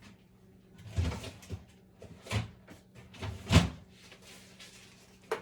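Kitchen handling knocks while working with food containers: three dull thuds about a second apart among smaller taps, over a faint steady low hum.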